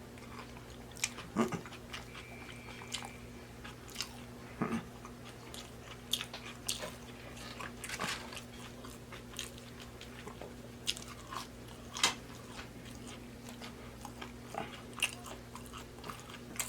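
Close-miked mouth sounds of a person biting and chewing fried chicken nuggets: irregular wet smacks and small crunches, a few per second at most, over a steady low hum.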